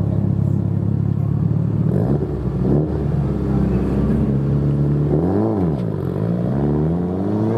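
Competition car engine running steadily, then revving up and dropping back once a little past halfway, and then pulling away with its pitch climbing steadily as it accelerates.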